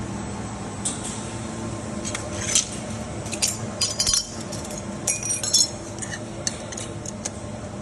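Pieces of glass clinking, a run of sharp clinks from about two to six seconds in, over a steady machine hum.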